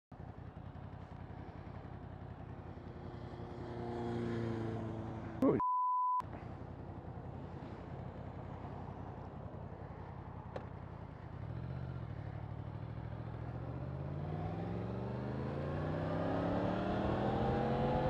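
Motorcycle riding at speed: wind noise and a 2018 Yamaha MT-10's crossplane inline-four running. About six seconds in, a brief steady beep sounds while all other sound drops out. From about eleven seconds the engine pitch and loudness rise steadily as the bike accelerates.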